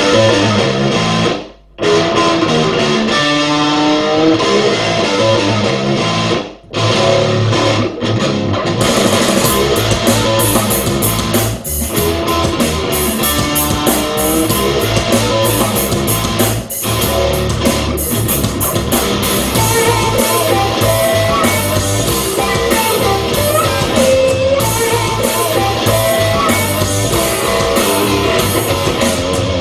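Instrumental rock music with electric guitar, played loud at full volume through a pair of Lithe Audio Bluetooth ceiling speakers, without distortion. It breaks off briefly twice in the first seven seconds, and the full band with bright cymbals comes in about nine seconds in.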